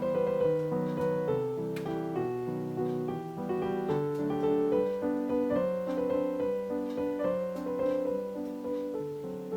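Background solo piano music: a brisk run of separate notes.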